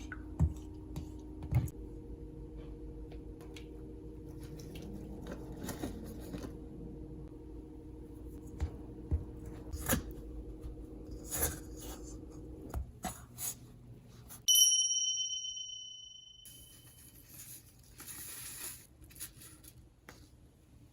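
Kitchen prep sounds while making hotteok mix: packaging rustling and tearing and small clicks, over a steady appliance hum that stops about 13 seconds in. About a second and a half later a single bright ding rings out and fades, followed by more rustling.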